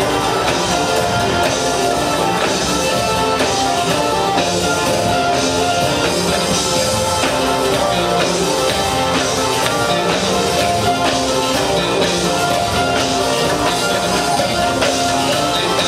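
Live gospel band playing: electric bass, electric guitar, keyboards and drum kit, with a steady beat and sustained chords.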